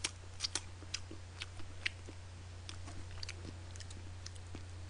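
Mouth sounds of eating fried chicken: wet smacks and clicks of chewing and finger-licking, scattered and most frequent in the first two seconds, over a steady low hum.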